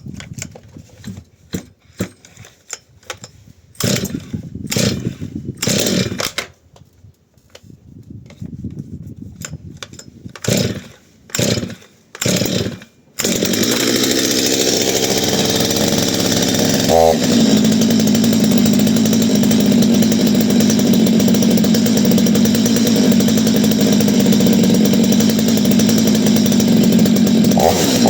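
Holzfforma G255 two-stroke chainsaw being pull-started for its first run: several short bursts from the starting pulls, then the engine catches about thirteen seconds in and runs fast. A few seconds later it drops to a steady idle, and it revs up briefly near the end.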